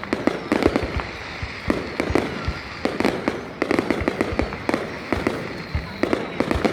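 Fireworks going off in a rapid, irregular string of sharp bangs and crackles.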